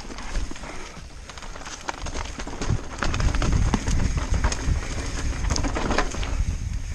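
Mountain bike descending rough rocky singletrack: tyres crunching over rocks and dirt, with many irregular clicks and knocks from the bike rattling, over a constant low rumble of wind on the helmet camera's microphone.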